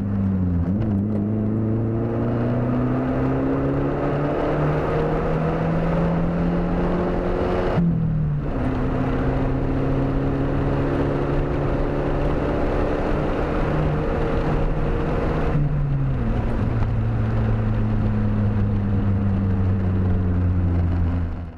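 1994 Ford Escort LX's 1.9-litre four-cylinder engine under full throttle, heard from inside the cabin as the car pulls up through the gears of its manual gearbox. The engine note climbs slowly in each gear and drops at two upshifts, about eight seconds in and again near sixteen seconds.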